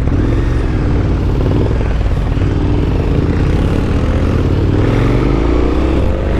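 KTM 1290 Super Adventure S's V-twin engine pulling off-road, its note dipping and then climbing steadily with the throttle over a constant low rumble.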